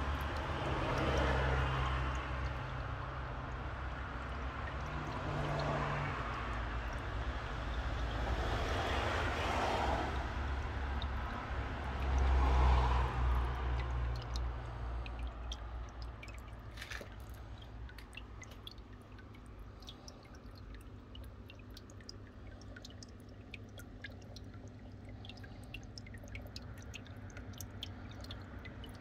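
Small paludarium stream trickling over rock and moss, with many sharp little drips in the second half. A low hum and rumble sounds through the first half.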